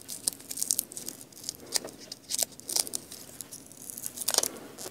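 Small irregular rustles, crinkles and short rasping tears from hands handling paper pieces and hook-and-loop (Velcro) tape whose hooks are being weeded out to weaken its grip.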